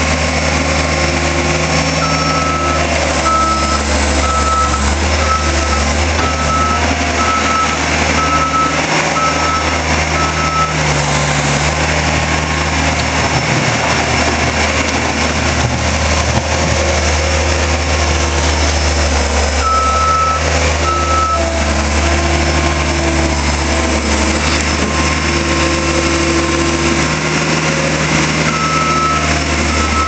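Caterpillar 252 skid steer's diesel engine running steadily while working, with a backup alarm beeping in stretches of about one beep a second as the machine reverses.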